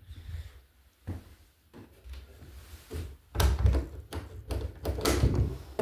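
A hinged interior closet door being handled and opened: a few light clicks at first, then from a little past halfway a run of louder knocks and thuds over low rumbling handling noise.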